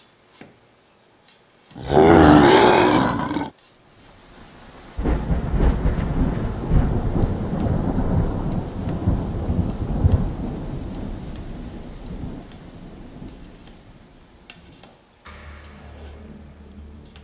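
Thunder sound effect: a loud crackling crash lasting about a second and a half, then after a short pause a long rumble of thunder that slowly fades away.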